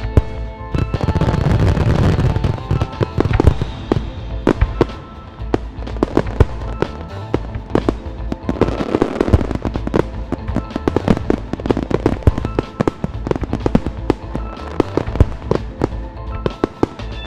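New Year's fireworks going off across a town: many sharp bangs in quick, irregular succession, with denser crackling about a second in and again around nine seconds in. Music plays alongside.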